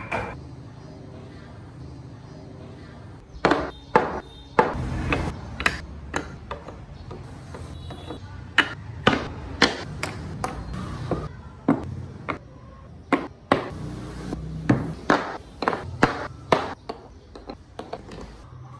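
Carved wooden model car parts being set down on a table one by one: a string of sharp, irregular wooden knocks and clacks, starting about three and a half seconds in.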